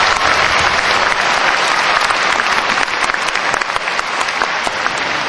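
A large audience applauding steadily, many separate hand claps blending into a dense wash.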